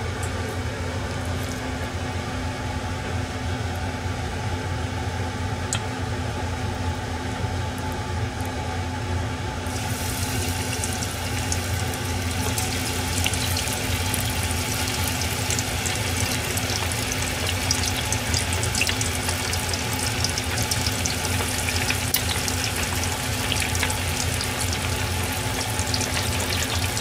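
Chicken pieces for karaage sizzling and crackling as they are dropped into deep-frying oil at 190 °C. The crackle starts about ten seconds in and keeps up over a steady low hum.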